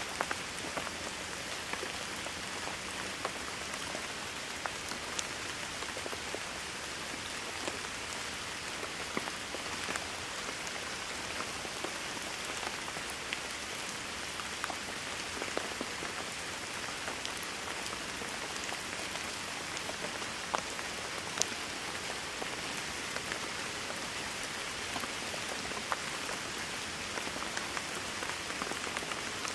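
Steady rain falling: a constant hiss with scattered louder drops ticking through it.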